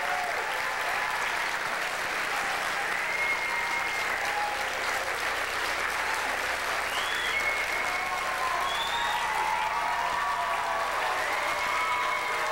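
Audience applauding steadily, with scattered cheers rising above the clapping.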